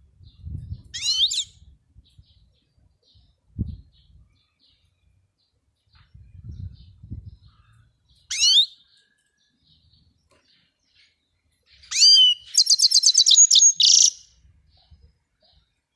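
European goldfinch: two short sweeping call notes several seconds apart, then about two seconds of fast twittering song near the end. A few low, dull thumps in between.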